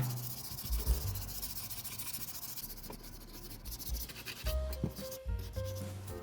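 Hand sanding or abrasive rubbing on a scale model car part, a steady scratchy hiss. Background music with low bass notes plays underneath.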